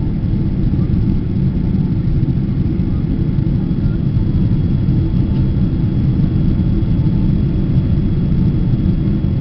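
Steady low rumble of a Boeing 777-200's twin turbofan engines and the airflow, heard from inside the passenger cabin during the climb after takeoff.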